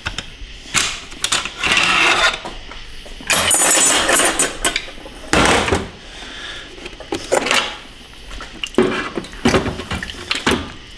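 Metal transmission parts clanking and scraping as a clutch housing is worked loose and lifted out of an opened 6L80 automatic transmission case, in a series of separate knocks with rattling between them.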